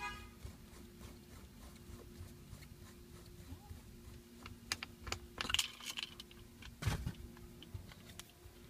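Small scattered clicks and a brief rattle of hands unscrewing the old shift knob from the gear lever, with a knock a little before the end.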